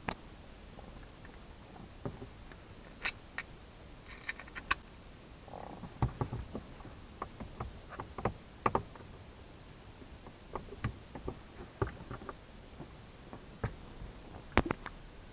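Irregular short clicks and knocks, a couple of dozen scattered over the stretch, the loudest a sharp click near the end: handling sounds of someone working on something by hand.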